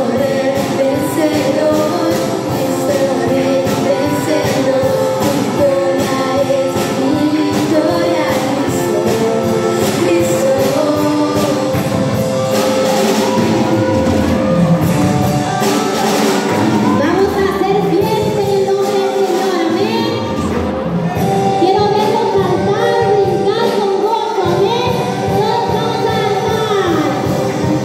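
Live Spanish-language worship song: several women singing into microphones over electric guitar and keyboard, with a steady beat.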